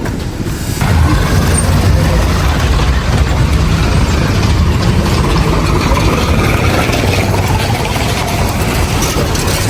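Busy street traffic: vehicle engines running with a steady low rumble, louder from about a second in.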